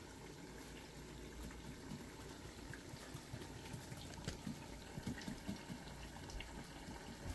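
Food frying in hot oil: a faint, steady sizzle with scattered small pops.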